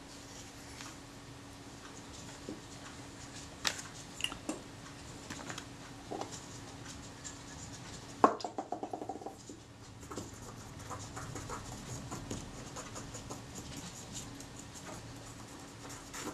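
Small handling noises of a dismantled camera shutter being worked on by hand over a paper napkin: light scratches and scattered taps and clicks. About eight seconds in comes a sharp knock, followed by a quick rattle lasting about a second.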